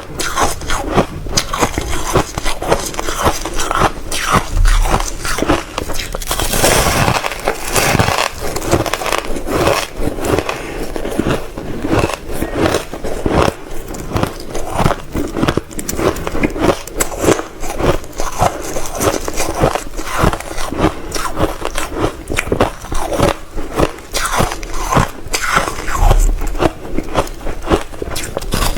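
Reshaped crushed ice being bitten and chewed close to the microphone: a continuous, irregular run of loud crunching and crackling.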